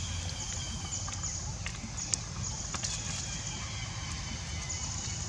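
Outdoor ambience: a steady high-pitched buzzing made of repeating pulses, with a few faint clicks, the sharpest about two seconds in.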